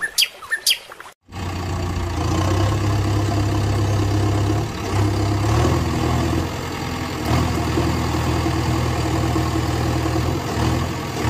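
Steady low engine hum like an idling motor, shifting pitch a little a few times. A few bird chirps come before it, in the first second.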